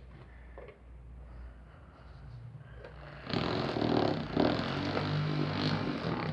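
Small salvaged DC motor of a homemade fan running with a low hum. About halfway in, a much louder, rough mechanical noise starts and stops sharply near the end.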